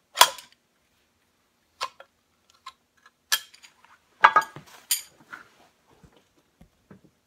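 Slide hammer striking, about five sharp metal clacks over five seconds at irregular spacing, the first the loudest, with lighter clinks between, as it works an old oil seal out of an engine bearing plate.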